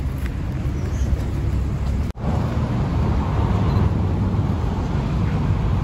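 Steady city street traffic noise with a low rumble. It drops out for an instant about two seconds in.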